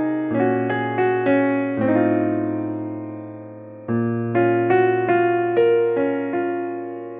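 Background piano music: single notes played over held low chords. About two seconds in, a chord is left ringing and fades out, and a new phrase starts about four seconds in.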